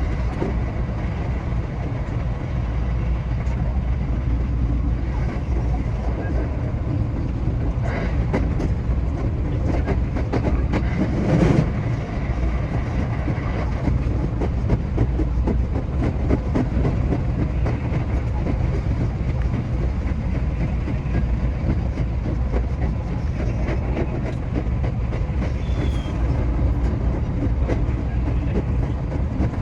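JR West 227 series electric train running on rails, a steady low rumble with quick wheel clicks over rail joints, heard from the driver's cab. A brief louder rush comes about eleven seconds in.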